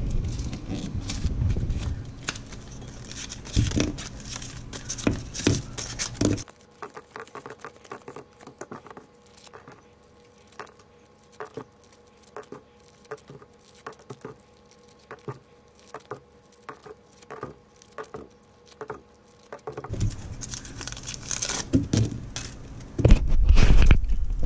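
Sticks of Doublemint gum being unwrapped by hand: paper wrappers tearing and crinkling, with many light clicks and taps as the sticks and wrappers are handled on the counter. A louder bump of handling comes near the end.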